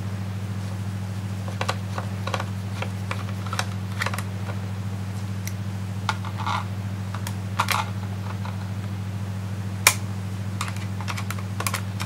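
Scattered small clicks and taps of a screwdriver turning screws in the plastic base of a Dell Inspiron 1525 laptop, with one sharper click near the end. A steady low hum runs underneath.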